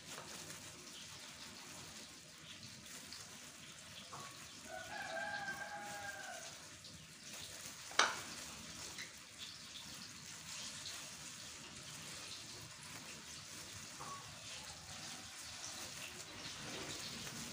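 A rooster crows once, a call of about a second and a half around five seconds in, over faint rustling of plastic-gloved hands shredding fish. A single sharp tap about eight seconds in is the loudest sound.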